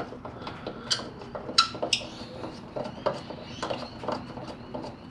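Light metallic clinks and taps of bolts and hand tools being handled, as an old engine-bay bolt comes out and a titanium bolt goes in. A few sharper, briefly ringing clinks come about one and two seconds in.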